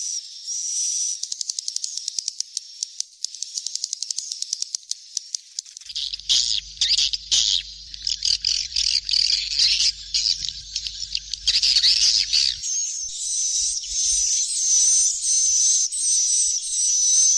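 Recorded swiftlet calls of the kind played to draw swiftlets to a nesting house. They start as rapid high clicking, turn to chirping about six seconds in, and become a steady high trill for the last few seconds.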